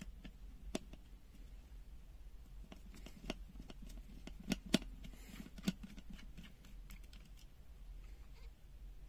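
Scattered small clicks and taps of a plastic pen-type multimeter's case being handled and opened, with a few sharper clicks about halfway through.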